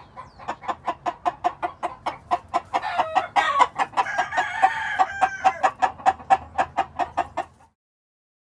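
Grey gamecock rooster (Lonnie Harper Mule Train grey) with rapid, evenly spaced clucking, about six a second. One crow runs through the middle, starting about three seconds in, and the sound cuts off suddenly near the end.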